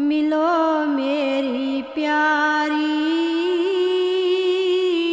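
A woman singing a Punjabi devotional shabad, drawing out a long held, wavering note with a brief break about two seconds in.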